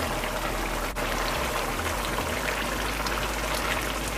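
A watery purée of drumstick leaves (saijan bhaji) and shrimp bubbling and sputtering steadily in an uncovered nonstick pan, boiling off its water.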